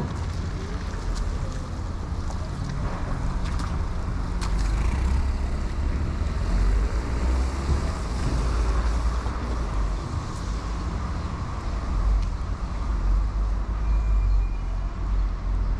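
City street traffic on wet roads: car engines and the hiss of tyres on wet tarmac over a steady low rumble, with a vehicle passing about halfway through.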